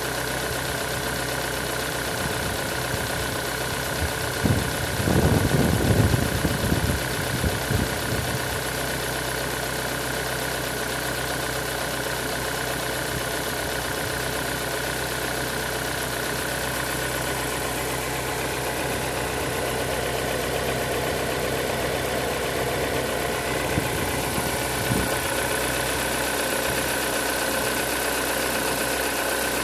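Car engine idling steadily, recorded for a knock in it that the owner is tracking down; a louder, uneven stretch of noise comes about four to eight seconds in, and a couple of short knocks about 24 seconds in.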